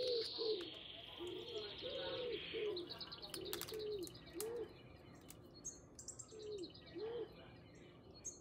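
Birds calling: a run of short, low, arched cooing notes, dove-like, with a high rapid trill in the first few seconds and faint high chirps later. A few light clicks sound now and then.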